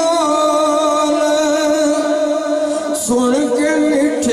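A man singing a naat, praise of the Prophet Muhammad, in long held notes that waver in pitch, moving to a new note about three seconds in.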